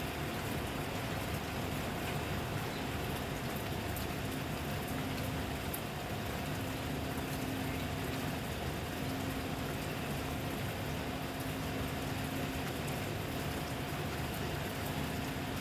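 Steady rainfall: an even hiss of falling rain, with a faint steady hum underneath.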